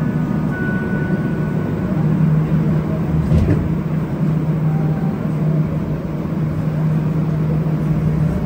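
Steady low hum of a Montreal Metro train standing at a station platform, heard from inside the car, with a faint brief tone about a second in and a light knock a little past three seconds.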